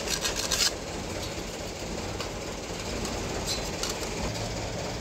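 Steady low background rumble, with a short burst of quick scratching in the first half second or so as a line is marked on a steel plate along a steel ruler, and a fainter scrape about three and a half seconds in.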